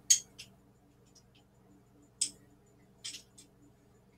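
A handful of short, sharp clicks and taps from a garlic press being emptied over a trash can. The loudest comes at the start and another about two seconds in, over a faint steady hum.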